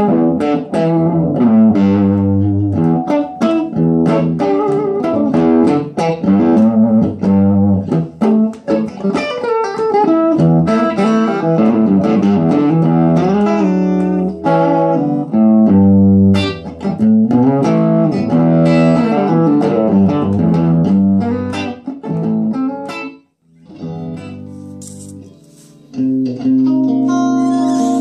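Electric guitar played through a 6V6-powered 20-watt 1x12 tube combo amplifier: picked single-note runs and chords, a short quiet break about three-quarters of the way through, then a held, ringing chord near the end.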